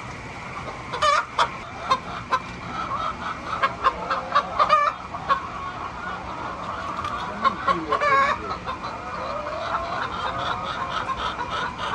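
A flock of hens clucking in a chicken coop, many short calls overlapping, with a few louder squawks about a second in, near the middle and around eight seconds.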